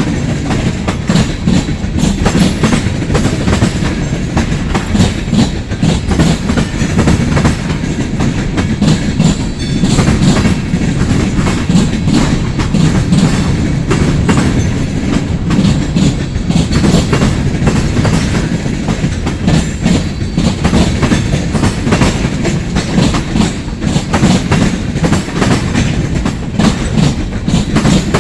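Long freight train's cars rolling past at speed, a steady rumble with the wheels clicking over the rail joints in a rapid run of clicks.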